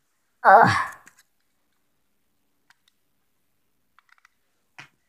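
A short wordless vocal sound from a boy about half a second in, falling in pitch. It is followed by a few faint clicks of a small plastic toy being handled.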